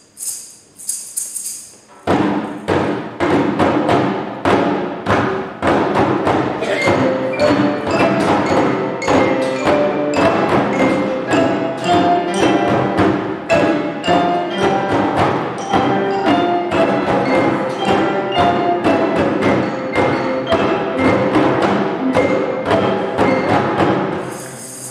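Children's percussion ensemble playing a piece: wooden Orff xylophones with djembe hand drums, keyboards and acoustic guitars, in many struck, pitched mallet notes over a steady beat. A few high rattling shakes come first, the full ensemble comes in about two seconds in, and it stops just before the end.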